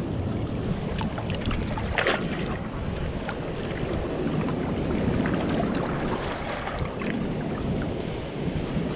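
Wind buffeting the microphone over open sea, with water lapping against the hull of a small wooden boat. A short sharp sound stands out about two seconds in, among scattered lighter clicks.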